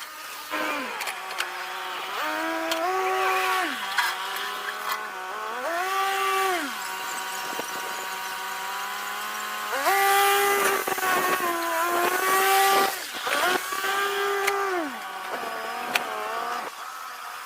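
Skid steer engine running and revving up and down repeatedly as the machine works, its pitch rising and falling about five times.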